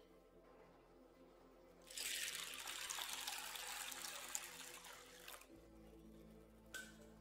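Water poured from a metal container onto dry soybeans in a glass bowl, splashing steadily for about three and a half seconds from about two seconds in and tapering off as the pour ends.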